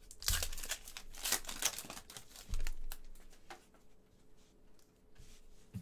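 Foil wrapper of a trading-card pack crinkling as it is torn open by hand, with a dull knock about two and a half seconds in, then lighter rustling.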